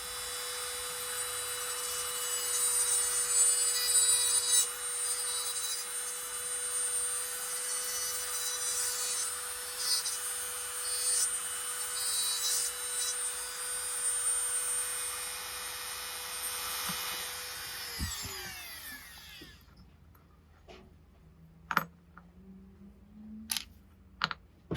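Small power tool running steadily for about eighteen seconds as the front wheels of a diecast toy car are taken off, then switched off and spinning down with a falling whine. A few light clicks follow near the end.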